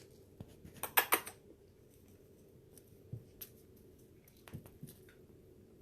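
Close-up handling noise: a short scratchy rustle about a second in, then a few faint scattered clicks.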